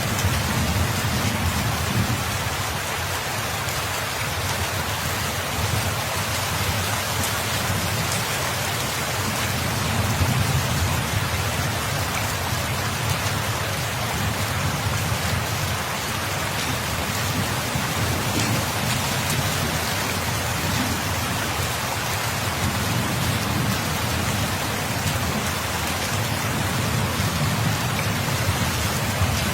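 Steady, dense rainfall. Underneath it a low rumble swells and fades slowly several times.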